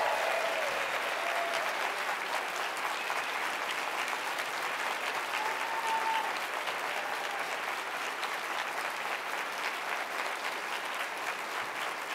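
Large audience applauding: dense, steady clapping that eases off slightly toward the end.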